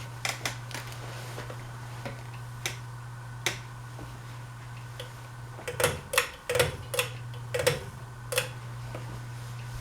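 Harbor Breeze Pulsar ceiling fan running on medium speed: a steady low motor hum with irregular light ticks and clicks, bunched together about six to eight seconds in.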